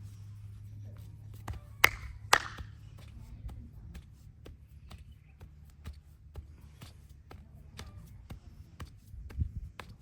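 Hands at work in a massage: two sharp, loud cracks half a second apart about two seconds in, then lighter clicks and taps of the hands on the body.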